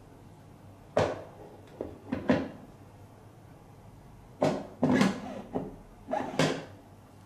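Clear acrylic drum of a tablet friability tester being handled and fitted onto the tester's drive hub: hard plastic knocks and clunks, a few about a second to two seconds in and another cluster from about four and a half seconds.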